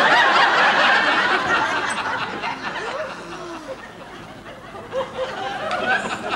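Studio audience laughing, loudest at the start and dying down, then rising again near the end.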